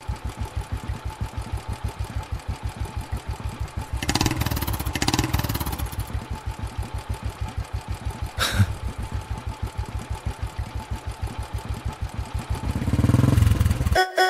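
Motorcycle engine idling with a steady low beat of about seven pulses a second. It is revved up briefly twice around four and five seconds in and again near the end, and there is one sharp click about halfway through.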